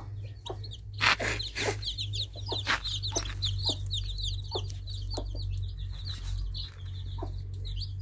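A brood of newly hatched domestic chicken chicks peeping, many high-pitched cheeps in quick succession throughout. A few loud knocks come in the first three seconds, over a steady low hum.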